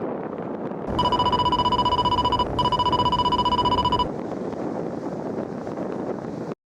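Steady wind rushing over the microphone, with a loud, rapidly pulsing electronic buzzer tone starting about a second in. The tone lasts about three seconds with one brief break in the middle. All sound cuts off suddenly near the end.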